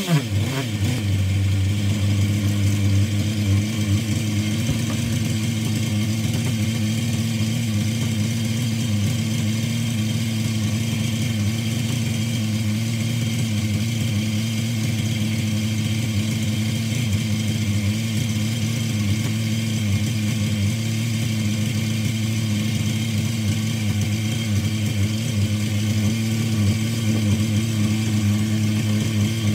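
Hobao Hyper .21 nitro engine, a small two-stroke glow engine on a bench test stand, running on its own at a steady, even speed.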